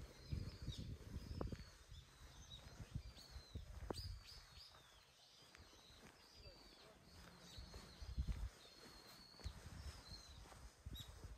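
Small birds chirping repeatedly in short high calls, with a few dull low thumps near the start and again about eight seconds in.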